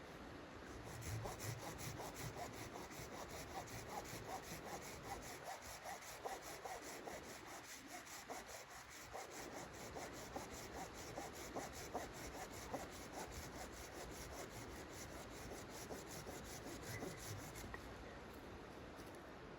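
Hand saw cutting wood in steady, even back-and-forth strokes, a few a second. It starts about a second in and stops near the end.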